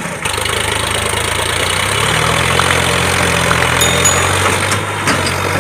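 Tractor engine sound running steadily at a low, even pitch. It cuts out briefly right at the start and then comes back.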